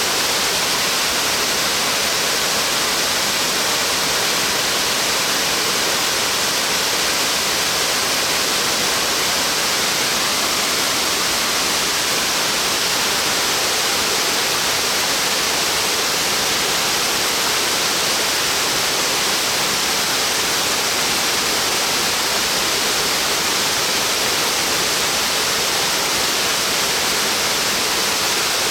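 Water falling down a tall, wide branching waterfall with a 111 m drop: a steady, unbroken rush, strongest in the hiss range.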